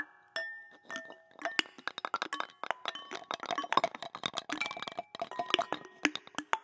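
Handheld found-object instruments (lydes) struck in quick, irregular clusters, each hit ringing briefly at its own clear pitch. A single hit comes right at the start, then a dense flurry of taps builds through the middle and thins out near the end.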